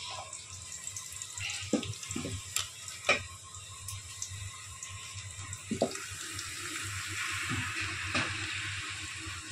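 Sliced onions sizzling in hot oil in an aluminium pot, stirred with a wooden spoon that knocks against the pot a few times. The sizzle swells louder in the second half.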